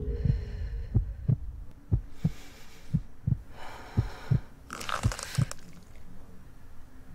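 A heartbeat sound effect, a low double thump (lub-dub) about once a second, six beats in all. Three breathy gasps come over the beats from about two seconds in.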